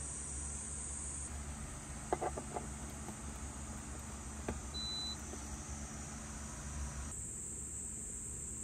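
Crickets chirring steadily in a high band, with a low hum underneath. A few clicks of handling about two seconds in, then a button press on an EcoFlow portable power station with one short electronic beep about halfway through.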